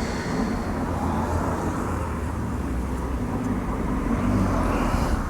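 A motor vehicle's steady noise, like traffic on a road, swelling slightly near the end.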